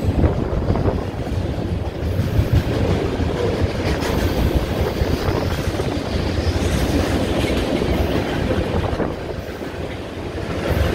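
Freight train cars, centerbeam flatcars and a tank car, rolling past below with a steady clatter of steel wheels on the rails.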